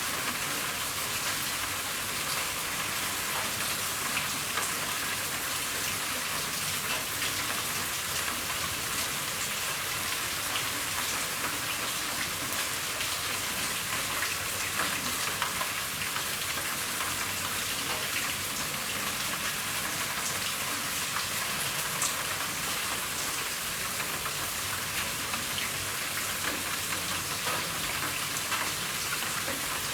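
Steady rain falling on a roof, a constant hiss with many fine drop ticks.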